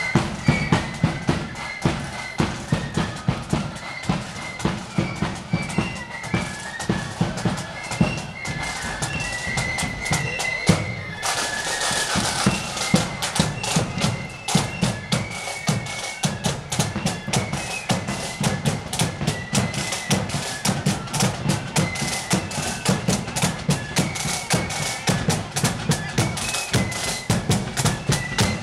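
Marching band music: a high, sustained melody over a steady march drumbeat with bass drum. The band grows brighter and louder about eleven seconds in.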